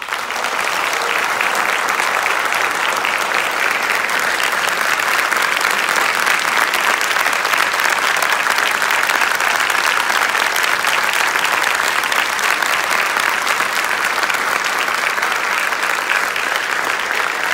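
A large audience applauding: dense, steady clapping from a packed hall that holds its level throughout.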